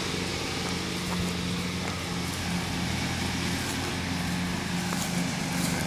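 Steady low mechanical hum of a motor or engine running.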